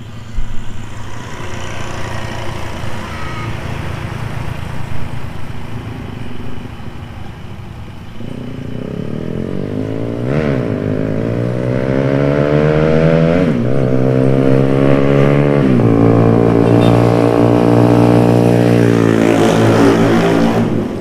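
Heavy diesel dump truck accelerating past along the road. Its engine pitch climbs and drops back with each gear change, about every three seconds, then holds high and loud and falls away near the end. Road traffic noise comes before it.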